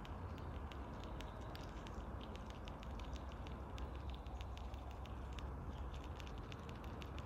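Squirrel gnawing and chewing food: a quick, irregular run of small clicks and crackles over a steady low background rumble.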